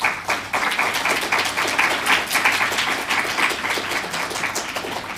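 Audience applauding: many hands clapping, starting at once and fading away near the end.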